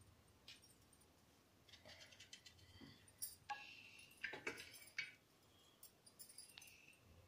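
Faint, scattered clicks and metallic clinks of a knife slitting small brinjals and touching a steel plate.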